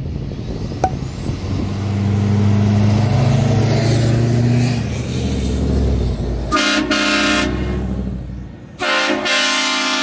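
Duramax diesel pickup engine running as the truck drives past, then its onboard train horns blasting twice: a chord of several tones, one blast of about a second and a second, longer blast a couple of seconds later.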